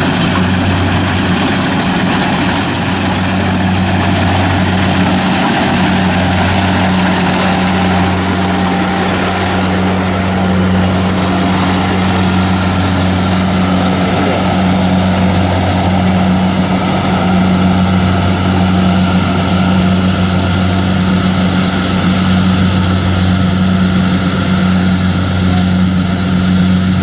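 Kubota DC-60 combine harvester running steadily while cutting rice, a constant engine drone with a strong low hum under a broad mechanical whir.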